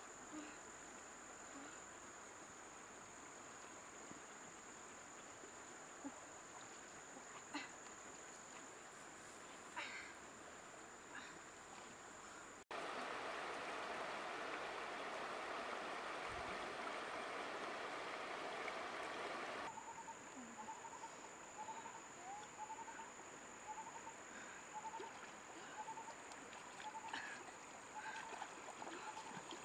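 Shallow river running over stones, a steady rush of water with a few faint splashes. After a cut about 13 s in, the rushing is louder for several seconds. In the last third a short chirping call repeats about once a second.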